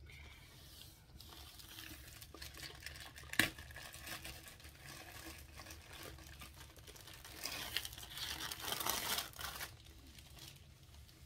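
Plastic wrapping on a rolled canvas crinkling as it is handled and pulled open, with one sharp click a few seconds in and louder crinkling later on.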